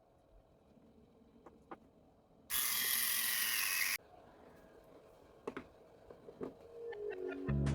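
A small high-speed electric motor, such as a mini grinder's coreless motor, whirring loudly for about a second and a half, starting and cutting off suddenly. Light handling clicks come before and after it, and background music begins near the end.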